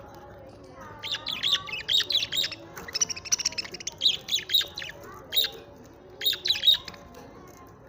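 Pet budgerigars chirping: rapid runs of short, high chirps in several bursts, with a brief lull midway.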